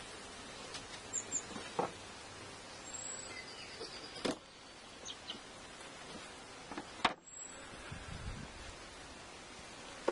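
Outdoor ambience by open beehives: a steady background hiss with faint short bird chirps, broken by a few sharp clicks or knocks about two, four and seven seconds in.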